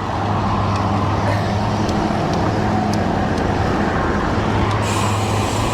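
Steady road traffic noise from motor vehicles on a highway, a continuous low hum under a broad rushing haze.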